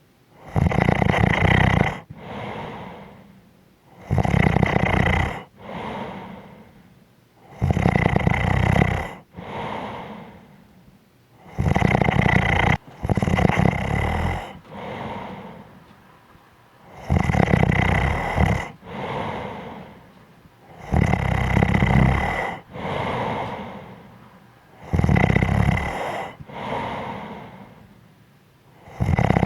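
A person snoring in sleep in a regular rhythm. Each breath brings a loud snore followed by a quieter breath, about once every four seconds, with one slightly longer pause around the middle.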